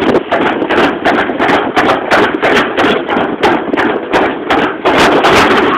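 Toboggan sled rattling and knocking as it runs down its track: a rapid, irregular clatter of knocks, several a second.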